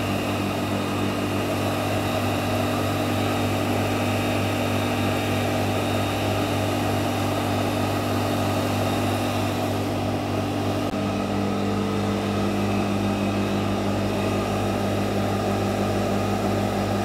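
Reverse-osmosis plant's electric RO pump running with a steady hum while it circulates chemical cleaning solution through the membrane, with the solution splashing from the return pipe into a foaming bucket. The hum's tone shifts slightly about eleven seconds in.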